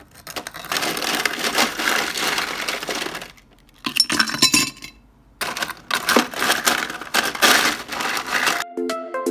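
Ice cubes poured into a glass jar, clattering and clinking against the glass in three pours with short pauses between. Music begins near the end.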